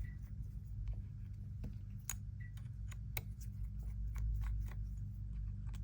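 Faint, scattered small clicks and ticks of a precision pentalobe screwdriver working the two bottom screws of an iPhone 13, over a steady low hum.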